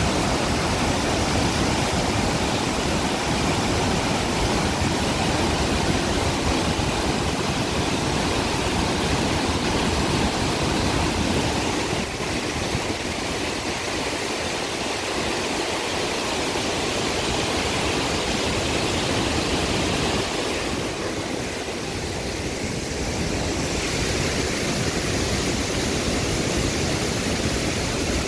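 Floodwater pouring through the open spillway gates of the Sông Ba Hạ hydropower dam: a steady, dense rush of falling and churning water.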